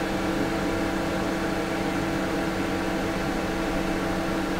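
2 kW diesel air heater running, its blower fan giving a steady hum.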